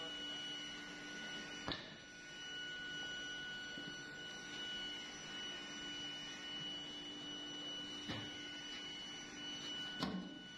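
A steady high-pitched whine over a lower hum, with a few sharp knocks: one about two seconds in and two near the end.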